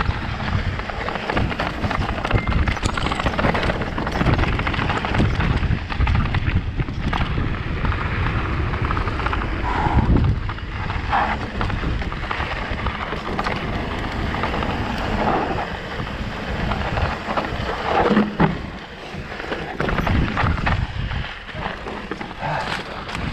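Electric mountain bike descending a loose dirt and rock trail: a continuous rumble of wind on the camera's microphone and tyres over gravel, with frequent knocks and rattles from the bike going over stones.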